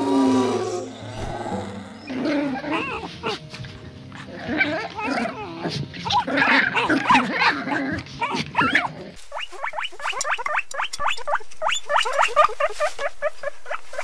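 Dogs barking and growling, then from about nine seconds in a fast run of short, high yelps.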